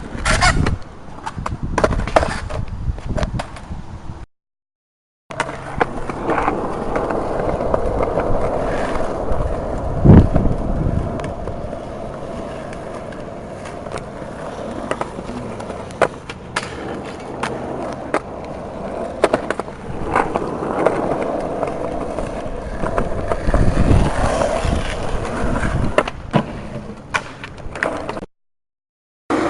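Skateboard wheels rolling over rough pavement, with sharp clacks and slaps of the board hitting the ground; the heaviest impact comes about ten seconds in. The sound cuts out to silence for about a second twice.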